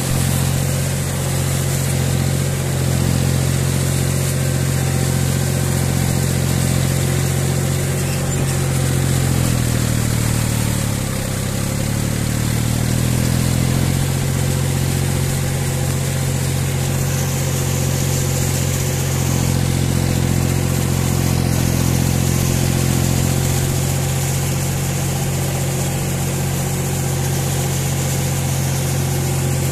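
John Deere 5045 tractor's three-cylinder diesel engine running steadily as the tractor drives through a muddy field, heard from the driver's seat. About ten seconds in the engine note sags briefly and recovers within a few seconds.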